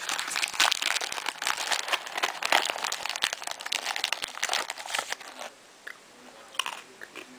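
Crinkling and rustling of a small Honey Nut Cheerios sample box and its plastic inner bag as it is handled: dense crackling for about five seconds, then fainter scattered rustles.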